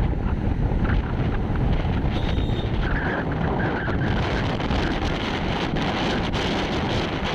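Wind rushing over a phone microphone on a moving vehicle, mixed with road and traffic noise. A few short beeps sound a little after three seconds in.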